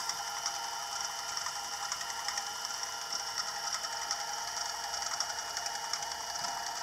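Bench milling machine's gear-driven spindle running steadily: a constant whine with a fast rattle of ticks through it.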